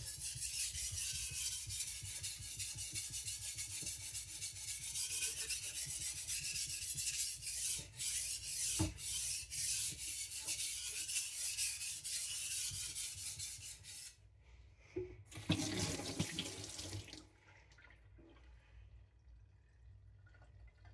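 A Victorinox Chinese cleaver's edge being stroked back and forth on a wet Naniwa Professional 400 waterstone: a steady, hissing scrape of rapid strokes, with the blade held at a low seven-to-ten-degree angle under light pressure to set the edge bevel. The strokes stop about 14 seconds in, one short run follows, then it goes quiet.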